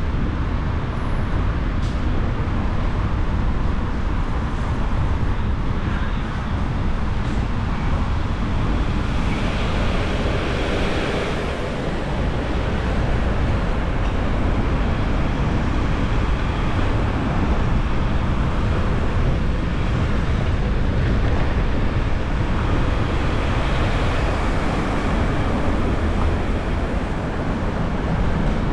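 Steady road and traffic noise from a car driving on city streets: a continuous low rumble with hiss over it. About ten seconds in, a brief swell of brighter noise passes.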